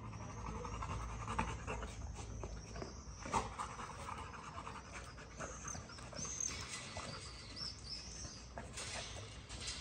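Yellow Labrador retrievers panting, with a few short high chirps about two-thirds of the way through.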